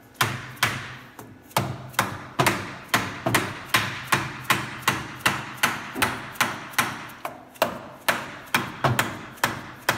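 Hammer striking a brake caliper over and over, about two and a half sharp metallic blows a second, to knock it into place on the Dana 60 front axle over new pads that fit tight.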